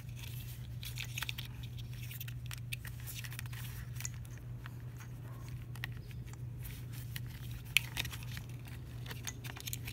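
Light clicks, taps and rustles of hands handling thin speaker wires, crimp connectors and a plastic A-pillar trim cover, with one sharper click about eight seconds in. A steady low hum runs underneath.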